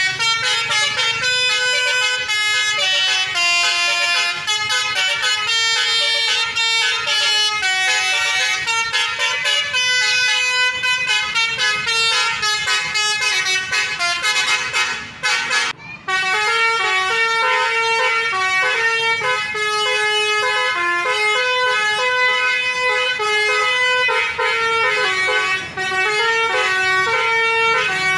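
Telolet basuri multi-tone bus horn playing a fast melody of stepped horn notes, with two short breaks about fifteen seconds in.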